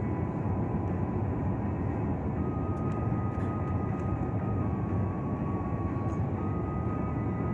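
Airliner cabin noise: the steady rumble and rush of the engines and airflow heard from inside the cabin, with a thin steady whine above it and a second, slightly higher whine joining about two and a half seconds in.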